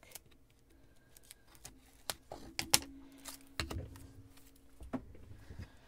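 Scattered small clicks and light taps of a ribbon spool being handled, opened and set down on a table, with a few sharper clicks and a soft knock near the middle. A faint steady hum runs underneath.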